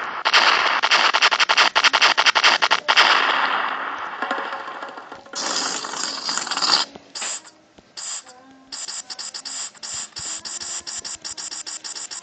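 Soundboard sound effects played back: about four seconds of loud crackling noise full of clicks that slowly fades, a burst of hiss about five seconds in, then rapid stuttering bursts of noise from about nine seconds on.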